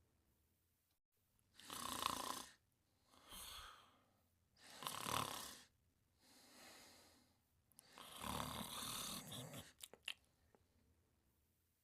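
Someone asleep snoring: three loud snores about three seconds apart, the last one longer, with softer breaths between them and a few faint clicks near the end.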